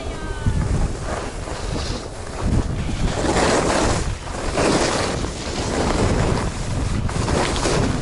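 Wind buffeting the microphone at skiing speed, with the hiss of ski edges scraping across packed, groomed snow swelling with each turn, about every second and a half from about three seconds in.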